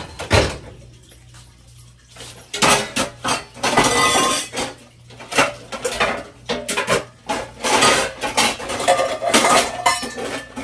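Pots, pans and metal utensils being handled and knocked together, a string of uneven clanks and clinks.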